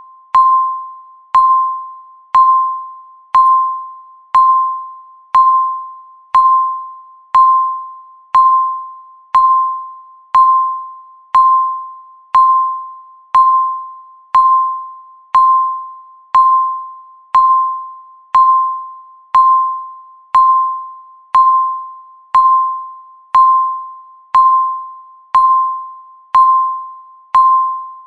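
Countdown timer beeping once a second, each second ticked off by one beep. Every beep is a single high, chime-like tone that starts sharply and fades away before the next.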